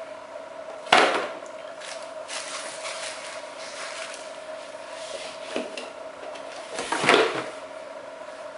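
Unpacking a camera lens: a cardboard box and a plastic bag rustling and being handled, with two louder sudden noises, about a second in and about seven seconds in.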